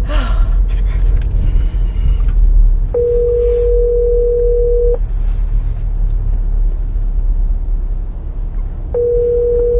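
Telephone ringback tone of an outgoing call, a steady two-second ring heard about 3 seconds in and again about 9 seconds in, four seconds apart, over a steady low rumble.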